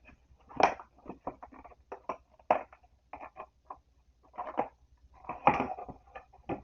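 Irregular rustling and crinkling of packaging being handled and torn open, in short uneven bursts.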